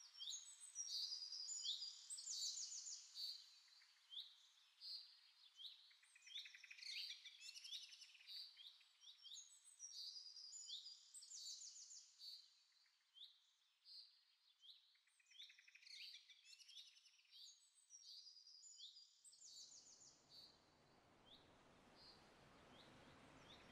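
Birds chirping in a quiet, busy chorus of short, quickly repeated calls. About twenty seconds in, a steady low background hiss comes in beneath the thinning calls.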